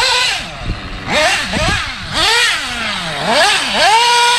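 Nitro RC car's small two-stroke glow engine revving in repeated throttle bursts, its high pitch sweeping up and falling back several times, then held at the top for about half a second near the end.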